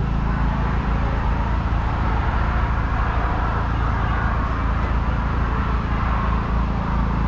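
A steady low engine drone that holds an even pitch and level, with a diffuse outdoor background haze.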